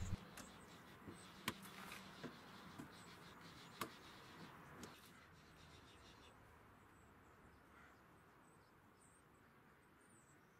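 Faint sharp clicks of wire cutters snipping the excess ends off the dog-door frame's nylon screws, a few over the first five seconds.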